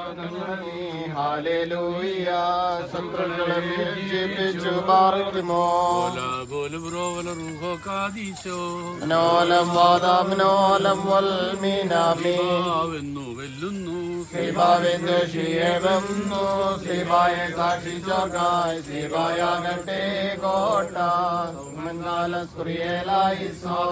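Men's voices chanting a slow Orthodox liturgical hymn, with long held notes over a steady low tone.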